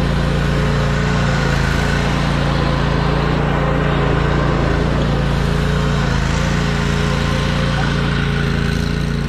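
Riding lawn mower engine running steadily at a constant pitch and level.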